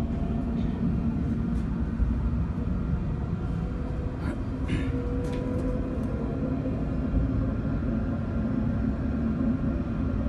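Steady low rumble of a tram running between stops, heard from inside the car, with a few light clicks or rattles around the middle.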